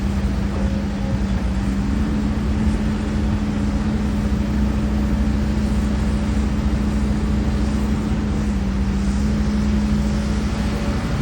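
Heavy diesel engine of earthmoving machinery running steadily at constant speed, with an even low hum.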